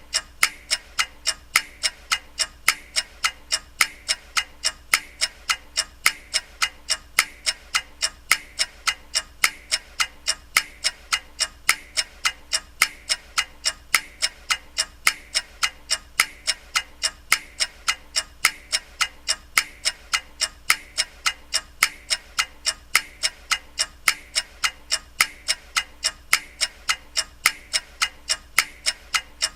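Clock ticking steadily, sharp even ticks at about two a second.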